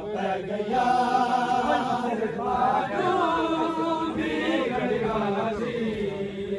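Crowd of men chanting a Muharram noha (mourning lament) together, in sustained, drawn-out sung lines.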